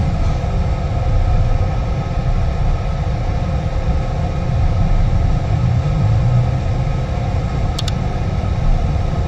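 Lennox EL296 gas furnace running in heat mode: a steady rumble from its blower and inducer motors, with a constant motor hum. Two faint ticks come near the end.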